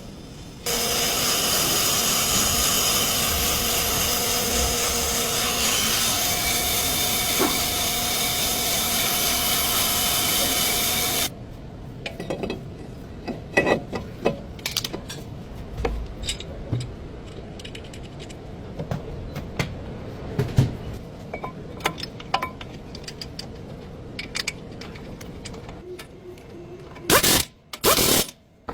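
A workshop tool runs steadily for about ten seconds with a hissing, whining sound, then stops abruptly. Scattered clicks and knocks of hand work on the brake parts follow, with two short loud bursts near the end.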